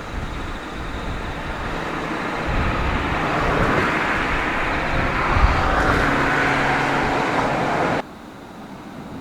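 Road traffic: a motor vehicle passing close, growing louder over several seconds, then cut off suddenly about eight seconds in.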